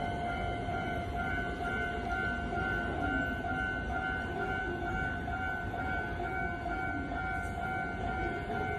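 Station platform train-approach warning: an electronic tone that pulses evenly and steadily, warning that a train is about to pass through without stopping.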